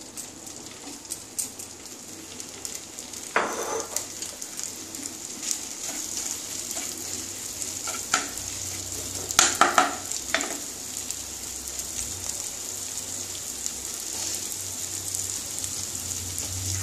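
Mashed boiled potato sizzling in hot mustard oil in a non-stick kadai, stirred with a wooden spatula. There are a few sharper knocks and scrapes of the spatula against the pan, clustered around nine to ten seconds in.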